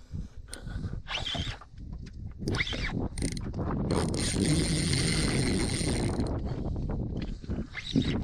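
Spinning reel's drag buzzing as a hooked barramundi takes line near the boat, with ratchety clicks of the reel before and after. The steady buzz starts about four seconds in and stops about two seconds later.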